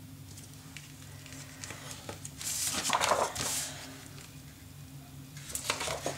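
Sheets of patterned scrapbook paper and cardstock rustling and sliding as they are moved and lifted on a tabletop, loudest about halfway through, with a few light taps and rustles near the end, over a low steady hum.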